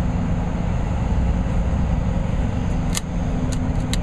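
Steady low rumble of idling vehicle engines with a faint hum. A few short sharp clicks come from about three seconds in, as the plastic fuel filter housing parts are handled.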